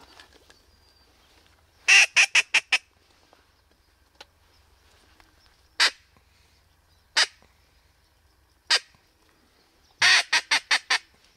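Mallard-style duck quacking: a run of five or six loud quacks, each fainter than the last, then three single quacks spaced a second or so apart, then another falling run of five or six quacks near the end.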